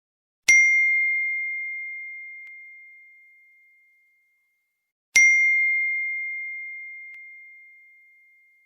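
Phone notification tone: a bell-like ding with one clear high pitch, played twice about five seconds apart, each strike ringing out slowly over three to four seconds.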